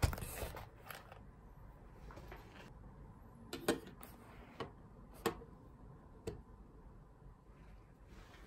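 Desk items being set down on a wooden desk: a knock at the start, then several short clicks and taps as a hard glasses case, a pencil case and a small digital timer are handled and put in place.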